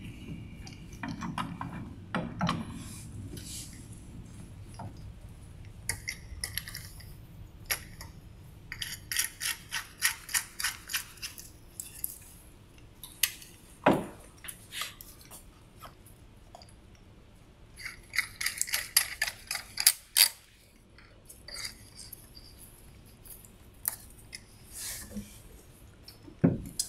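Plastic clicking and rattling as sample tubes are set into white tube adapters and clamped into the arms of a Retsch mixer mill (bead beater), with two spells of rapid clicks and a few sharper knocks; the mill is not yet running.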